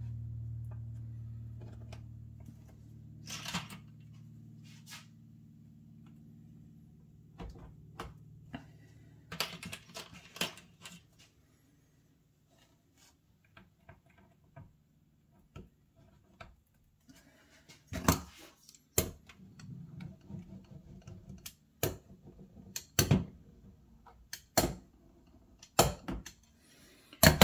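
Light clicks and taps as an HO scale number four turnout is handled and pressed down onto cork roadbed, scattered at first and sharper and more frequent in the second half. A low hum fades away over the first several seconds.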